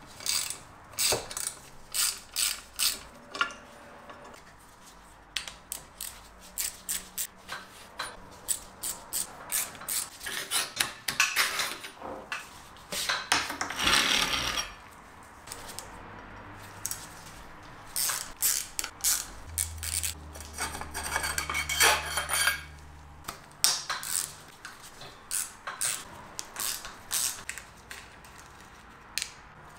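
Hand socket ratchet clicking in short runs of strokes, loosening bolts while a bicycle is taken apart, with occasional knocks of metal parts being handled.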